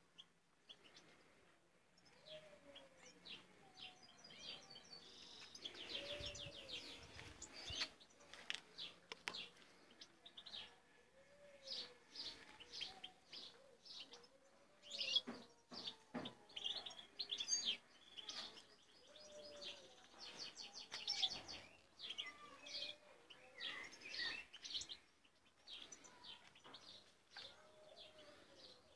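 Aviary goldfinches chirping and twittering in quick, high runs of notes, with a lower rising-and-falling call repeating every couple of seconds behind them.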